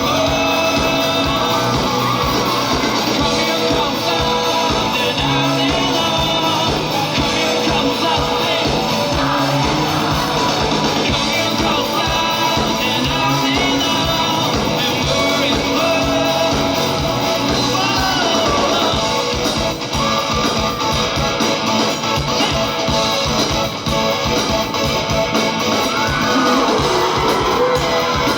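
Live rock band playing with a singer: guitars and a steady beat under the lead vocal, heard in a hall.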